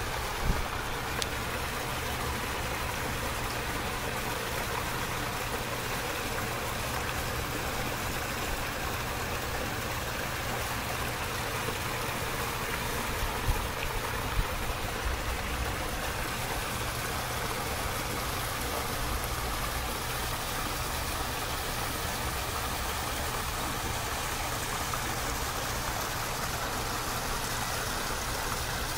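Small garden-pond waterfall splashing steadily over rocks into the pond, with a steady low rumble underneath and a couple of brief knocks about halfway through.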